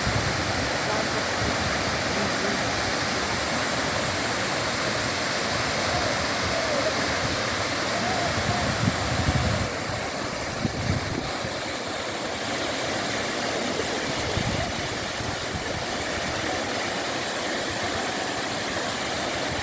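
Waterfall: a steady rush of falling water, a little quieter from about ten seconds in.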